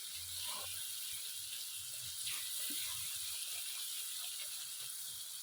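Onion-tomato spice masala sizzling steadily as it fries in oil in a pot, with faint scattered pops and light stirring knocks.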